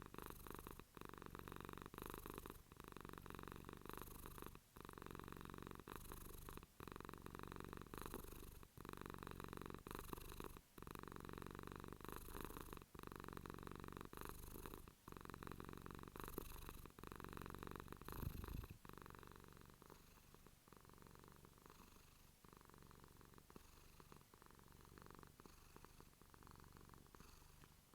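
Domestic cat purring close to the microphone, a steady low rumble with a short break about once a second as it breathes. A brief low bump comes about two-thirds of the way through, after which the purring goes on more softly.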